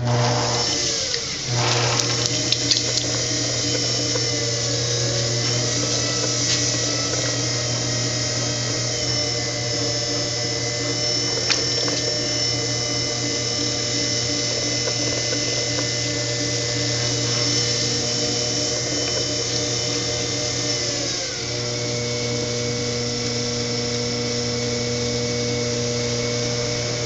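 Electric potter's wheel motor running with a steady hum and whine. It spins up over the first couple of seconds, then shifts to a lower speed about 21 seconds in.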